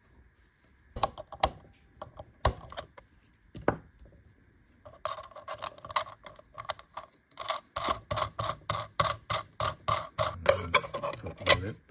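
Clicks of a small plastic rechargeable LED reading lamp being handled and its switch tested: a few sharp separate clicks, then from about five seconds in a fast run of clicking, about four a second.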